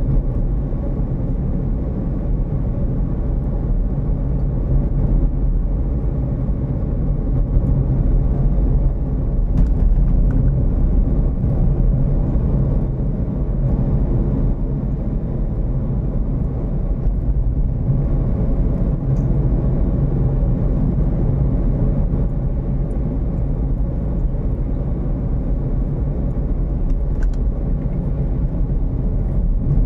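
Steady low rumble of a car driving along at an even speed: engine and tyre noise from the vehicle carrying the recorder.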